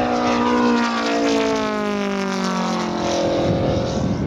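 Moki 250cc five-cylinder radial four-stroke petrol engine of a quarter-scale model P-47 running in flight, its pitch falling steadily, then fading near the end under wind noise on the microphone.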